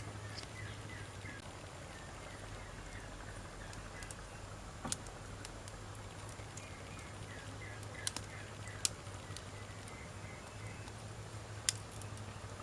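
Wood campfire burning: a steady low hiss with about four sharp crackling pops spread through it.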